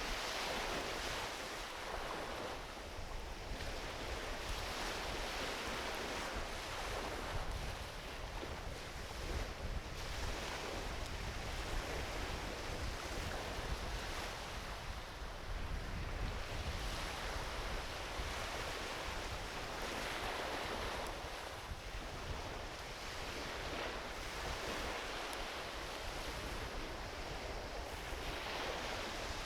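Small ocean waves washing onto a beach in slow swells every few seconds, with a driftwood campfire crackling alongside.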